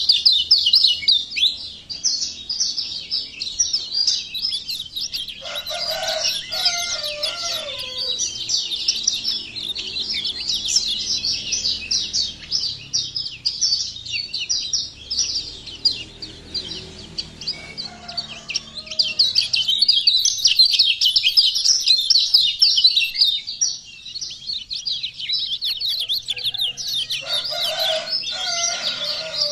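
Kecial kuning white-eye singing a fast, unbroken high-pitched twittering song, with lower slurred notes about six seconds in and again near the end.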